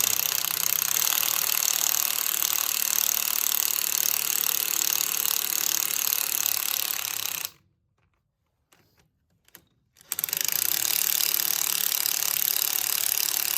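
Power tool with a socket spinning already-loosened fine-thread cylinder head nuts off the studs of a 1931 Rumely 6A: a steady, rapid mechanical rattle for about seven and a half seconds. It stops for about two seconds, with a few faint clicks, then runs again from about ten seconds in.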